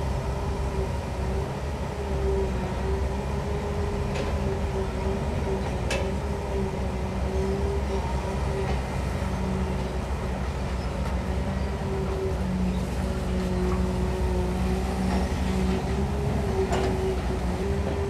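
Caterpillar 320 long-reach excavator's diesel engine and hydraulics running steadily as it digs, with a constant whine over the low engine rumble. A few sharp knocks come from the machine, the loudest about 6 s in.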